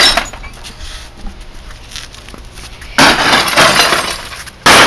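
A sledgehammer smashing a Bosch CRT television, its glass and plastic cabinet breaking. There is a loud crash about three seconds in and another right at the end, with broken pieces rattling and settling in between.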